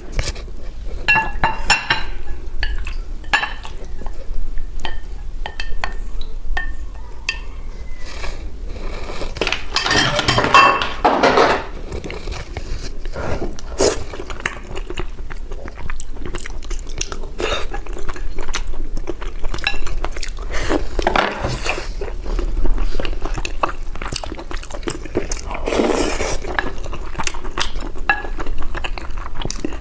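Eating a rice bowl: a utensil clinking and scraping against a bowl again and again, with chewing in between.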